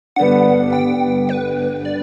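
Background music: a held synthesizer chord that comes in sharply just after the start and sustains.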